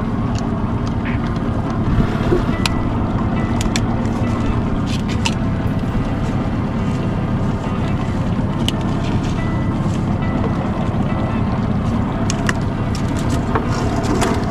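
A small fishing boat's engine running steadily at low speed, with a few light clicks over it.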